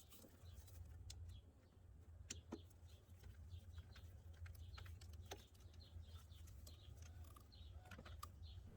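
Near silence: a faint low hum with a few soft clicks and taps of hand tools being handled.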